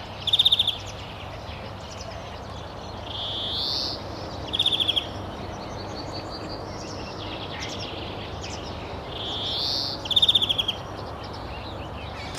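A songbird repeating a two-part phrase, a rising whistled note followed by a short, fast, rattling trill, heard three times. Fainter chirps sound between the phrases, over a steady background hiss.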